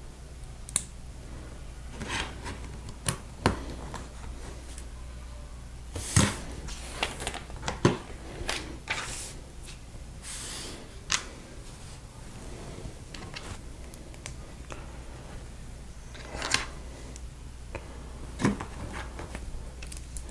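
Plastic LEGO pieces being handled and pressed together: scattered sharp clicks and short rattling rustles, over a low steady hum.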